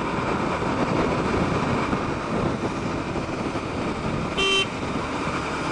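Steady road and engine noise of a motorcycle riding through city traffic, with one short vehicle horn toot about four and a half seconds in.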